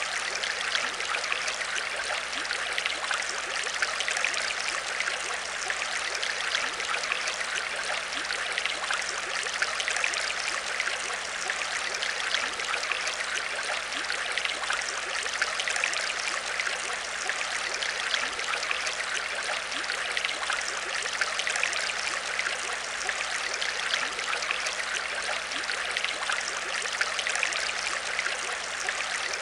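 Aquarium water trickling and bubbling steadily, with a dense patter of fine splashes and a faint steady low hum underneath.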